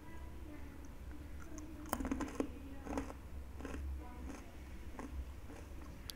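Crunchy fried snacks crackling in a string of short crisp clicks close to the microphone, starting about two seconds in, over a steady low hum.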